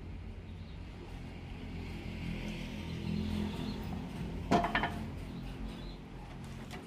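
Sawmill machinery running with a steady low hum, and one short, loud sound about four and a half seconds in.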